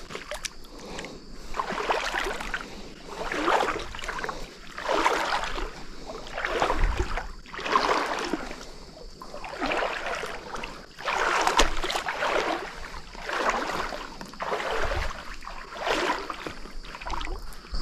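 Boots wading through shallow creek water, each step a splash and slosh, about one every second and a half.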